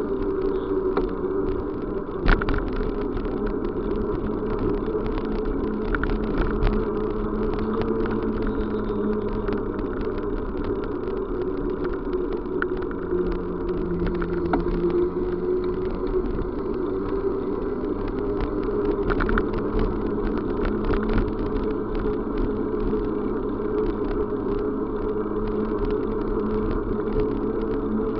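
Steady running noise of a vehicle in motion: a continuous drone with a tone that slowly drifts, and a few faint clicks.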